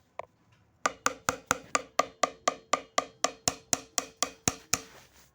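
A pitched drum struck once, then played in a quick, even run of about eighteen strokes at roughly four or five a second, each stroke ringing briefly on the same note, stopping shortly before the end.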